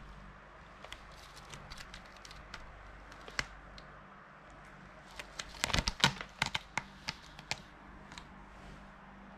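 A cat's claws scratching and catching on the sisal rope of a scratching post: scattered short scratchy clicks, with a busier flurry of them about six seconds in.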